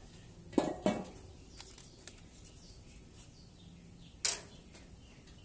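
Metal clanks of cookware being shifted on a Blackstone flat-top griddle: two quick knocks with a short ring about half a second in, and a louder, sharper clank a little past four seconds.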